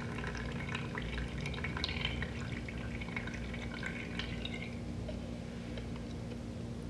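Soil-water extract dripping and trickling from a coffee-filter-lined funnel into a plastic cup: a quick patter of small drips that thins out and stops about two-thirds of the way through, over a steady low hum.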